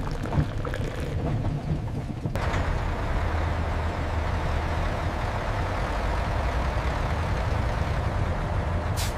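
Railway carriage rumbling with light rattles, cut off sharply about two seconds in by the steady roar of rocket engines firing on the launch pad, a dense rushing noise over a deep rumble.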